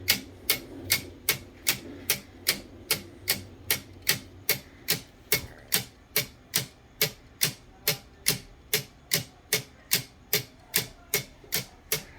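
3D-printed plastic clockwork escapement, spring-wound, ticking steadily at a little over two sharp clicks a second as it lets the gear train advance.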